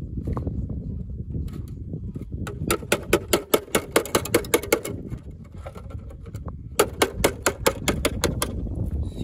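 Quick, sharp metal taps from a blade being struck with a hand-held stone to cut open the top of an old tin can. The strikes come in two runs at about five a second, the first starting a little over two seconds in and the second near the end, with a few single taps before them.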